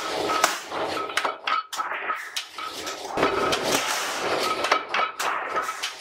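Sheet steel clattering and clanking against the steel tooling of a mechanical press brake as a washing machine body panel is positioned and bent, with sharp metallic knocks and rattles throughout and a heavier stretch about halfway through.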